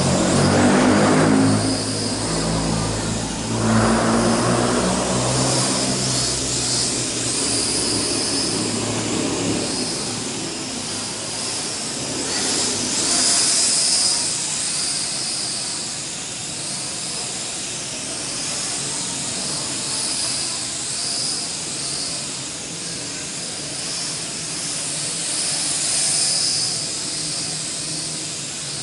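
L6036 toy quadcopter's motors and propellers whirring in a steady high buzz as it hovers, swelling and fading several times as it drifts about.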